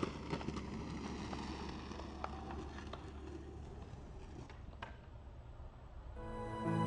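Skateboard wheels rolling on concrete, a steady grind with scattered light clicks, fading away over several seconds. Soft ambient music fades in near the end.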